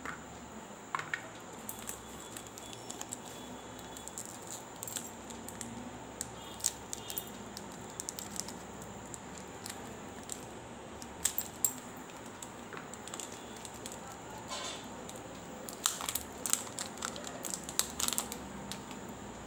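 A Dairy Milk chocolate bar being snapped into pieces that drop into a steel bowl, with its foil and wrapper crinkling: scattered sharp clicks and rustles, busiest near the end.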